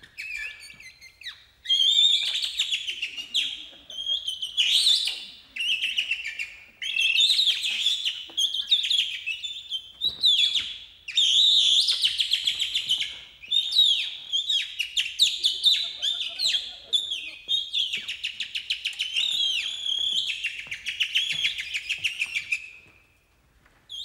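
Birdsong imitated by a person's mouth: quick high chirps, warbles and trills in phrases with short breaks, stopping briefly near the end.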